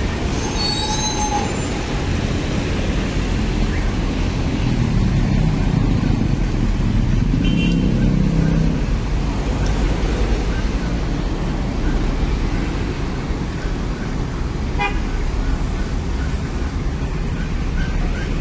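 Mercedes-Benz OF-1623 RF front-engined coach's diesel engine running as the bus pulls away, loudest about midway, over street traffic. A short horn toot comes about a second in.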